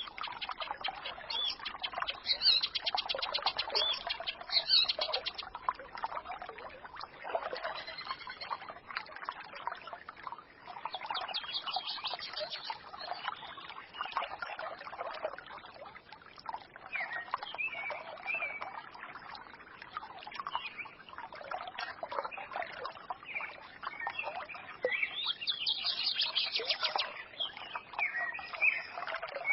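A small forest stream trickling and babbling, with songbirds chirping over it; quick high trills come in the first few seconds and again near the end.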